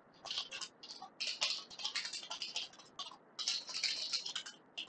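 Typing on a computer keyboard: a quick, uneven run of key clicks with short pauses about a second in and about three seconds in.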